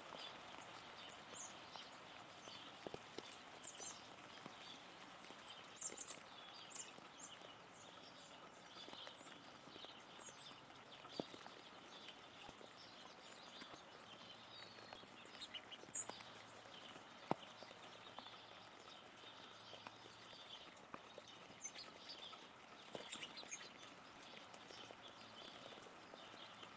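Faint rainy outdoor ambience: an even hiss with scattered drips and brief high chirps, and a few sharp taps, the clearest about 11, 16 and 17 seconds in.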